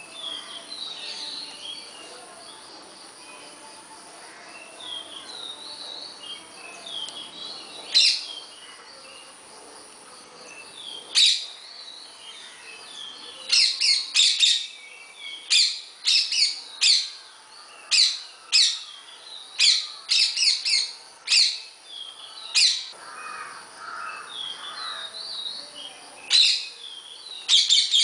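Parakeets calling: a run of loud, harsh shrieks, one or two a second, starting about eleven seconds in and returning near the end, over fainter high chirping.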